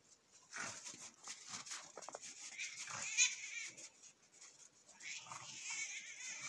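A cat yowling in protest as a dog wrestles it: a wavering cry about three seconds in and again near the end, among short scuffling sounds.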